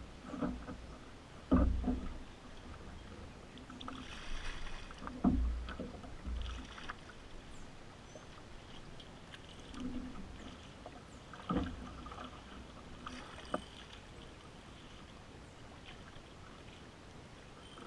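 Paddling a small boat on calm water: irregular paddle strokes swishing and splashing, with a few sharp knocks of the paddle against the hull. The strokes and knocks are spaced a few seconds apart and fade out over the last few seconds.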